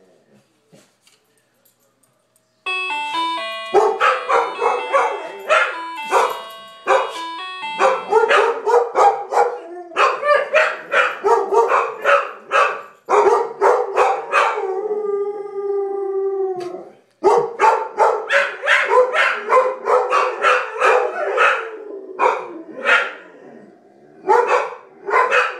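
A multi-note doorbell chime plays its tune, and a dog barks rapidly and repeatedly over it. About halfway through, the dog breaks into a howl of a couple of seconds, then goes back to barking.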